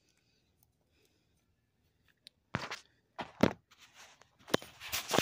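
Handling noises: after a couple of seconds of quiet, a series of knocks, thumps and rustles as Lego pieces are picked up and the handheld phone is moved. The loudest is a thump a little past the middle.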